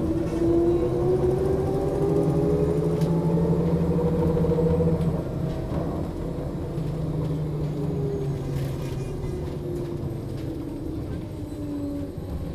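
Bus engine running from inside the passenger cabin, a low rumble with the engine note rising over the first five seconds, then easing off.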